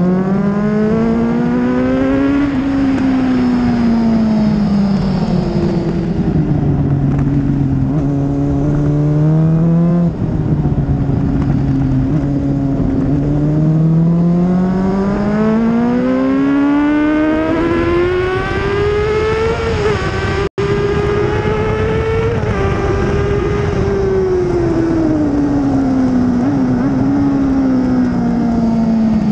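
Onboard sound of a 2004 Honda CBR600RR's inline-four engine at track speed, its revs rising and falling through the corners: a long climb through the middle, then easing off near the end. The sound cuts out for an instant about two-thirds through.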